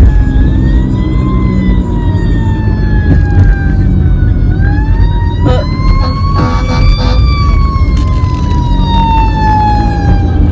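Ambulance siren wailing, its pitch slowly rising and falling twice. It is heard from inside a moving car, over the low rumble of the cabin and road.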